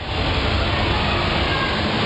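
Steady rushing background noise, even and unbroken.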